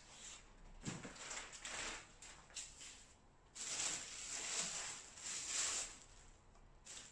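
Plastic shopping bags rustling and crinkling in bursts as bottles and packs are moved around in them, the longest stretch starting about halfway through.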